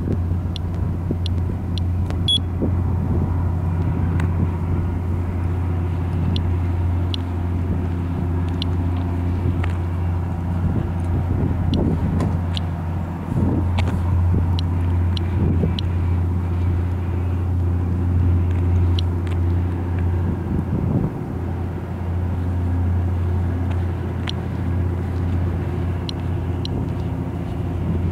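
Steady low drone of an idling engine. Over it, irregular sharp clicks from an Inspector+ Geiger counter, roughly one a second, as it counts ordinary background radiation of about 0.1 µSv/h.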